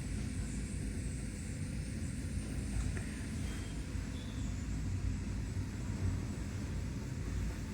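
Passenger lift car travelling, a steady low rumble inside the cabin.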